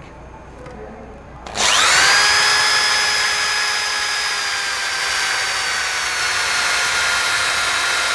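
Electric drill starting up about a second and a half in, its motor whine rising quickly and then running steadily as a 5 mm bit bores through a metal motor-mount plate.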